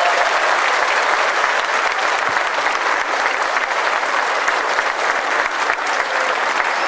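Large crowd applauding, many hands clapping densely and steadily.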